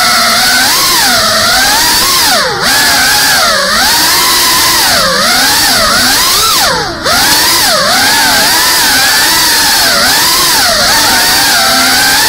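FPV racing drone's brushless motors and propellers whining as it flies, the pitch constantly rising and falling with the throttle over a steady hiss of prop wash. The whine drops away briefly twice, about two and a half seconds in and again near seven seconds, as the throttle is chopped and picked back up.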